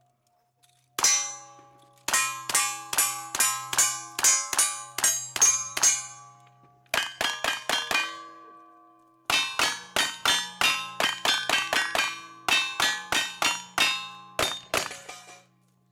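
Shotguns firing in fast strings of shots at steel plate targets. The plates clang and ring after the hits. There are two short pauses between the strings.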